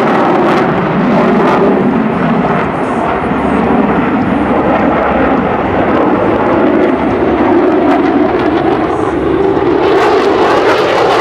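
Jet noise from an F-16 Fighting Falcon manoeuvring overhead: a loud, steady rush that swells slightly near the end as the jet comes round into a level pass.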